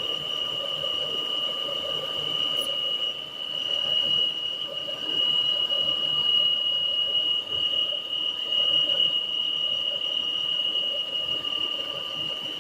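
Peugeot 408 engine running with a steady, high-pitched squealing whine that sounds like a failing pulley bearing. The noise actually comes from the valve cover.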